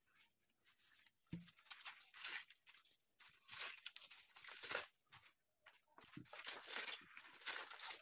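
Faint rustling and crunching of a chopped pork, leafy greens and vegetable mixture and the banana leaf under it, scooped by hand and pushed into a bamboo tube in irregular handfuls, with a soft knock about a second in.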